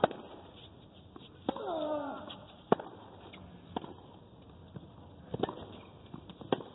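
Tennis rally: racket strikes on the ball as sharp pops, six in all, about every one to one and a half seconds. A player gives a short grunt that falls in pitch with the stroke about a second and a half in.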